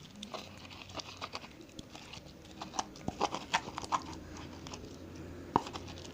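Spoon stirring sticky homemade slime of liquid silicone glue and detergent in a bowl: a run of short, irregular wet clicks, with one sharper knock about five and a half seconds in.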